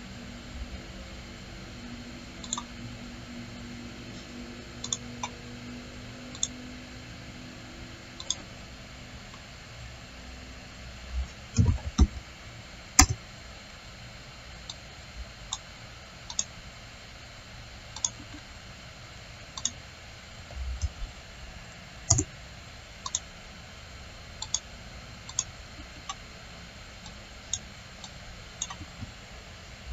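Scattered clicks of a computer mouse at irregular intervals, with a few louder knocks near the middle, over a steady background hiss.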